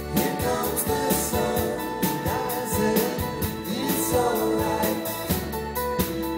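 Live band playing an acoustic song: strummed acoustic guitars under singing voices, with a steady high percussion tick keeping the beat.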